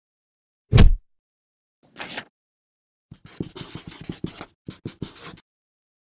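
Title-animation sound effects: a heavy thud just under a second in, a short swish about a second later, then quick scratchy pen-on-paper strokes for about two seconds that stop abruptly.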